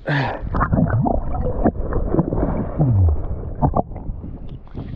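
River water sloshing and gurgling against a camera held right at the surface as a person lowers himself into the river. It starts with a sudden loud splash, then irregular splashing and bubbling with short falling gurgles.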